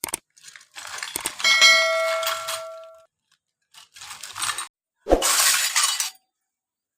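Small toy kitchen pieces being handled and set down: rustling, with a clink about a second and a half in that rings on with a clear tone for about a second and a half, and a sharp knock about five seconds in followed by more rustling.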